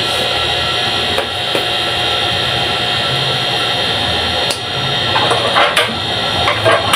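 Metal tortilla press being worked: a few light knocks and clacks as it is opened and loaded, then a cluster of knocks near the end as the lid and lever are pulled down to press the masa. A steady background noise with a hum runs under it all.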